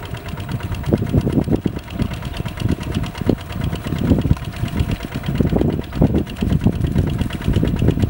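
Single-cylinder diesel engine of a two-wheel walking tractor running steadily with a fast, even knock, pulling a plough through flooded paddy mud.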